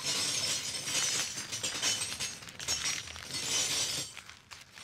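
A crackling noise with high tinkling notes, swelling and easing several times and thinning out near the end.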